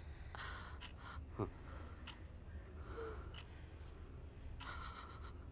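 A woman's faint, shaky breathing in distress, with a short whimper that falls in pitch about a second and a half in.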